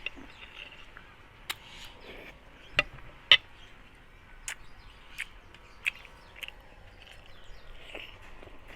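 Close-miked eating of chicken curry: irregular wet mouth clicks and smacks from chewing, spaced about a second apart, the loudest about three seconds in, over a faint hiss.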